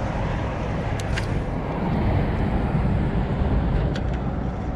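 Steady low rumble of road traffic on a bridge, with a few faint clicks about a second in and again near the end.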